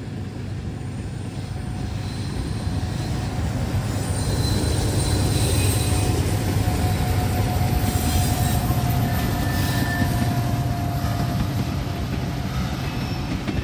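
Norfolk Southern freight train rolling past with its mid-train distributed-power diesel locomotives: a deep engine rumble that swells about four seconds in and eases near the end, with steady high-pitched whines over it, which the railfans call screaming.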